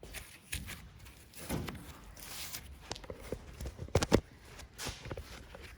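Scattered knocks and clicks from work on a grain head's sickle knife sections, with two sharp knocks close together about four seconds in.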